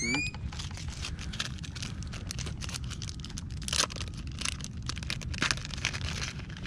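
Clear plastic bag crinkling and rustling in the hands as a fishing lure is handled, with irregular small crackles and clicks over a steady low rumble.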